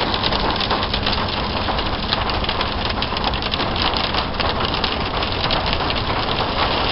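Hail and rain pelting the roof and windshield of a van, heard from inside the cabin: a dense, rapid, steady patter of hard clicks over the low rumble of the vehicle driving.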